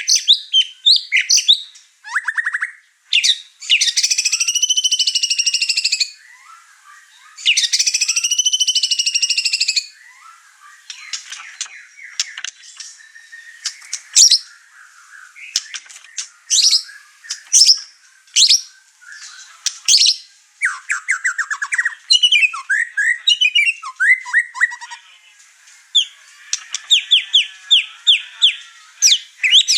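White-rumped shama singing excitedly, running through its repertoire of learned phrases: quick chirps, whistles and fast trills, with two long, harsh buzzing phrases of a few seconds each in the first third.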